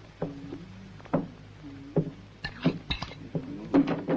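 A metal spoon clinking and scraping against a pan of beans while someone eats, about eight short, uneven clinks.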